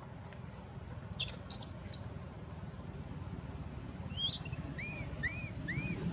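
A few brief, very high squeaks, then in the second half a run of short chirps that rise and fall, about two a second, over a steady low background rumble.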